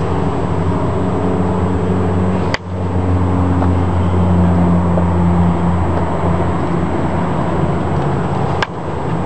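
Two sharp cracks about six seconds apart, a bat hitting baseballs in grounder practice, over a steady low hum.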